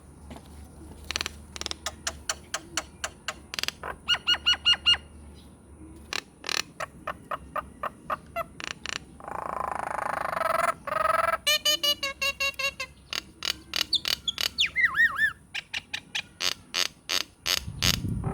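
A jalak nias myna singing a varied, fast string of sharp chips and clicks and clear whistled notes, with a harsh raspy call in the middle and curving whistles later. The song mixes in imitated calls of other birds.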